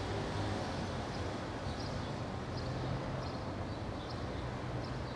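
Outdoor ambience: a steady low rumble and hiss, with faint short high chirps roughly twice a second.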